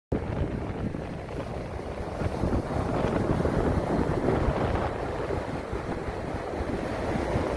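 Sea surf rushing on a beach with wind buffeting the microphone, a dense rumbling noise that starts abruptly out of silence.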